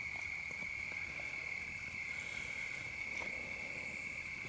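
Night chorus of calling animals: a steady, unbroken high-pitched trill. A few faint crackles from the campfire come through.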